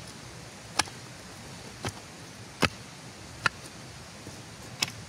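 A hoe chopping into loose earth to dig a planting hole: about six separate strikes, roughly one a second.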